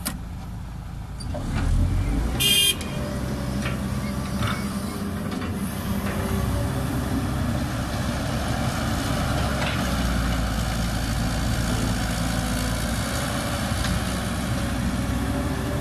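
CAT 312B hydraulic excavator's diesel engine running under load as the machine swings and digs. There is a brief loud clatter about two and a half seconds in, after which the engine sound is fuller and steady.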